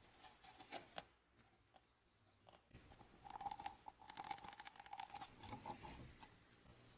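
A clear plastic cup with epoxy resin in it, handled with a gloved hand: faint clicks and creaks of the plastic, with a thin squeaky rubbing that grows denser from about three seconds in.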